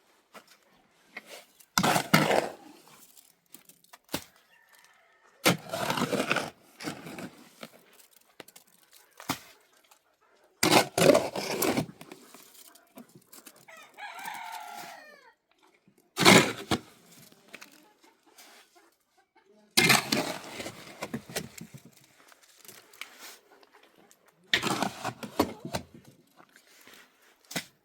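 A rooster crowing once about halfway through, among loud, noisy sounds about a second long that come roughly every four to five seconds.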